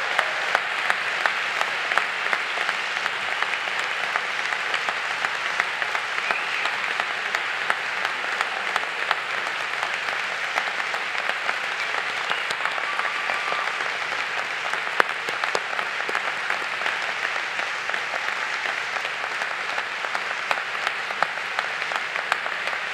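Large audience giving a standing ovation: sustained, dense applause of many hands clapping, with a few scattered cheers, holding steady.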